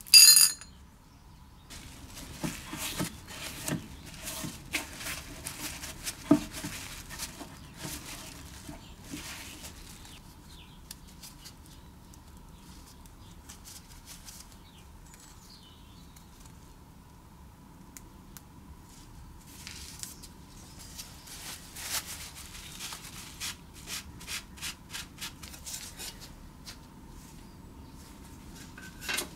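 Hands working on small metal engine parts: irregular clicks, light clinks and scraping or rubbing. The work is busy in two stretches, one early and one in the last third, over a faint steady tone.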